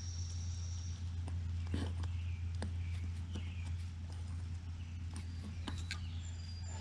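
Scattered light metallic clicks and taps of pliers working a cotter pin at a garden tractor's wheel hub, over a steady low hum.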